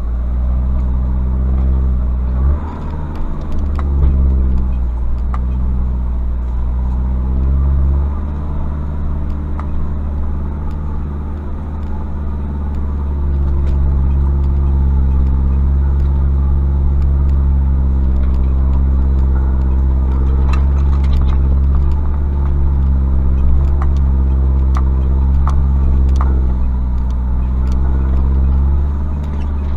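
Pickup's Mazda WL-T 2.5-litre four-cylinder turbodiesel running at low revs as the truck crawls along, the engine note rising and falling slightly several times. Occasional sharp clicks and knocks sound over it.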